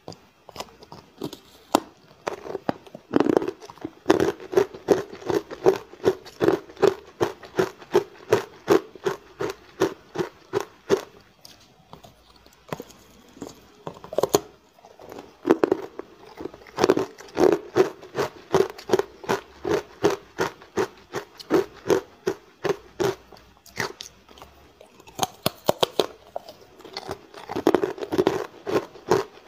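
Hard ice dusted with matcha powder being bitten and chewed close to the microphone: a steady run of sharp crunches, about three a second, with a couple of short pauses.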